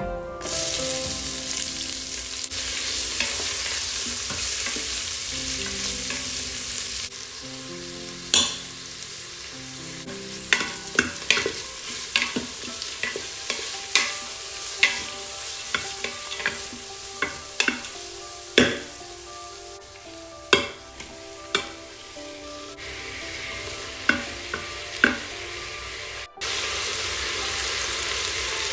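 Sliced red onions hitting hot oil in a stainless steel Instant Pot inner pot and sizzling loudly, then frying more quietly while a spoon stirs and knocks against the pot many times. The sizzle turns loud again near the end.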